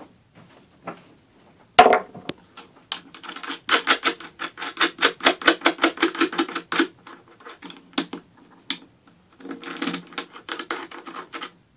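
A clear plastic circle-cutting template fitted with an X-Acto knife, turned around its pivot to cut a vinyl wrap along the rim of the hole. It makes quick, scratchy clicks, about five a second, in two runs, after a single sharp knock about two seconds in.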